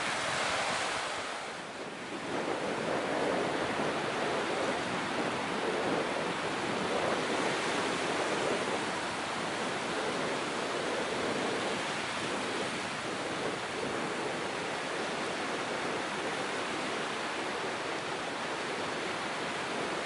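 Small sea waves breaking and washing up a sandy beach: a continuous rush of surf that dips briefly about two seconds in, then runs on steadily.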